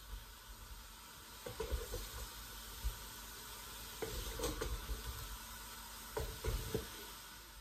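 Fresh prawns sizzling in a hot pot, fried without oil, while a wooden spoon stirs and scoops them out, scraping and knocking softly against the pot now and then.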